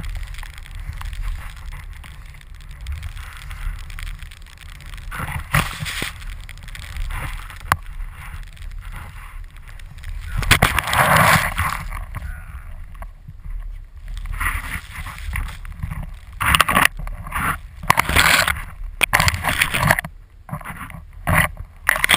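Skis swishing through deep powder snow, with wind rumbling on the pole-mounted action camera's microphone. Loud hissing rushes come as snow sprays over the camera, a few at first, then thick and fast in the last third.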